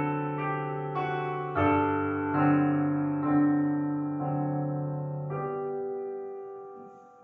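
Piano playing slow, held chords, a new chord about every second; the last chord rings on and fades away near the end.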